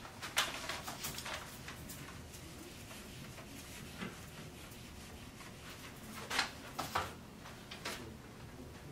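Whiteboard eraser wiping marker off a whiteboard in short rubbing strokes. There is one run of strokes at the start and another about six seconds in.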